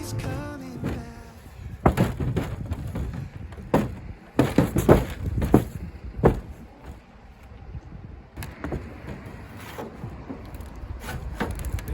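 Irregular sharp knocks and clanks from tools and metal parts being worked and handled on a camper's roof during removal of a rooftop air conditioner. The loudest cluster comes about four to six seconds in.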